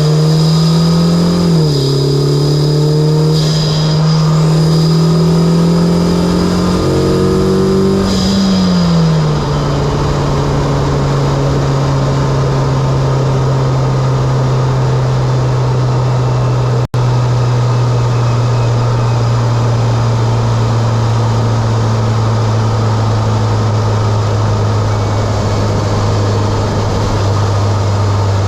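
Mitsubishi Lancer Evolution X's turbocharged 2.0-litre four-cylinder, fitted with an aftermarket Injen intake and HKS exhaust, accelerating through the gears: the engine note climbs, drops at a shift, climbs again, then eases off and settles into a steady cruise for the rest.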